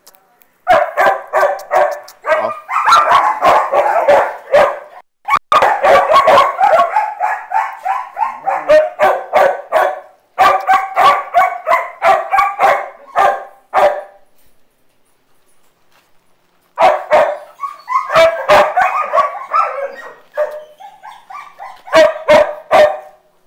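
Dogs barking in quick, loud, repeated runs, with a quiet gap of about three seconds a little past the middle.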